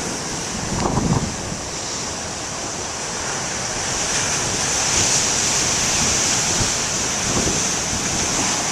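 Big ocean waves breaking and washing on the shore, with wind on the microphone; the surf grows louder about halfway through.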